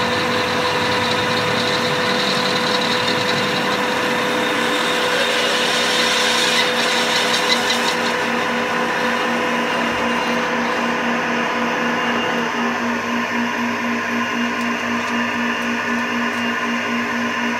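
Metalworking lathe set up for milling, running with a steady motor and gear whine. About two-thirds of the way through, one of its tones drops out and a lower pulsing hum carries on.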